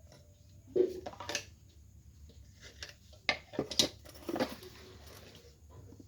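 Knocks and clinks of kitchen things being handled, in two short bursts: a few about a second in, and a busier run from about three to four and a half seconds in.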